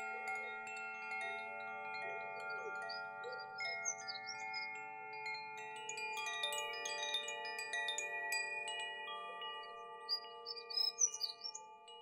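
Two Koshi wind chimes, bamboo tubes with tuned metal rods struck by an inner clapper, ringing as the breeze swings them. Overlapping bell-like notes ring on and blend, with new strikes throughout. Small birds of a dawn chorus chirp over them, most busily near the end.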